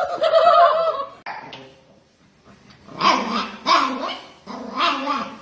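A dog making a drawn-out, wavering vocal sound, then barking a few times from about three seconds in.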